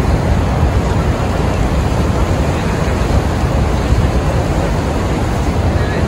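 Steady noise of wind and rough water, heaviest in the low end, with wind buffeting the microphone.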